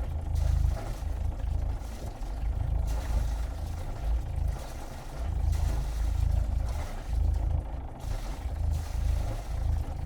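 Sailboat diesel engine running, heard from outside the hull, with a low rumble and the exhaust outlet splattering water in uneven surges about once or twice a second.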